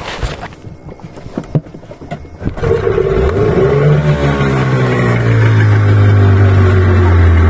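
A few light knocks and clicks, then about two and a half seconds in a boat engine starts up; its pitch shifts briefly and it settles into running steadily and loudly.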